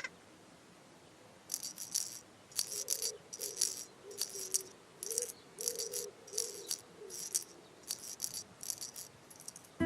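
Rattle or shaker sound effect: short bursts of quick rattling shakes that start about a second and a half in and repeat roughly twice a second.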